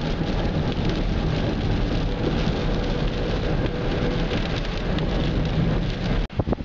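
Inside a car driving in rain: a steady hiss of tyres on a wet road and rain, over a low rumble. Near the end the sound cuts out briefly several times.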